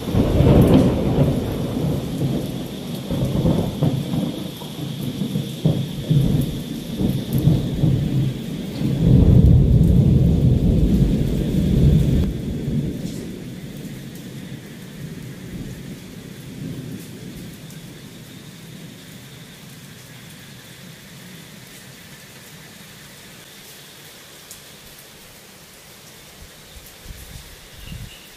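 Thunder rolling in a long, loud rumble that swells again about nine seconds in, then dies away over several seconds, leaving the steady hiss of rain.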